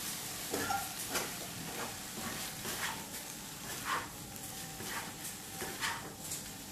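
Tofu and egg stir-frying in a stone-coated nonstick wok: a steady sizzle, with a spatula scraping and knocking against the pan about once a second as the pieces are tossed.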